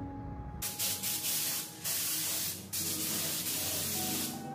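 Gravity-feed spray gun spraying clear coat over sanded plastic taillights: three hissing passes, each about a second long with brief breaks between, over background music.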